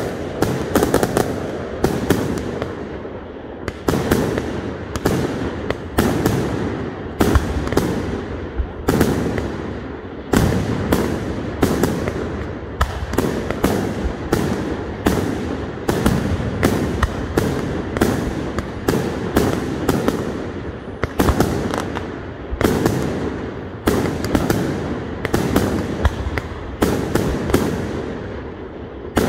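Fireworks display: aerial shells bursting in a steady barrage, about one or two bangs a second, each trailing off in echo.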